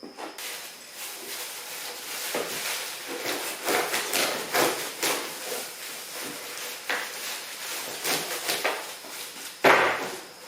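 Rustling and scraping of leafy branches being forced into and pulled back out of a jammed wood chipper's feed chute, with irregular knocks and one louder knock near the end.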